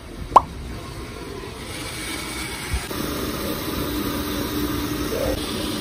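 Steady city street noise with a traffic hum. About half a second in, a brief, loud, sharply rising squeak cuts through, and a faint steady hum joins from about three seconds in.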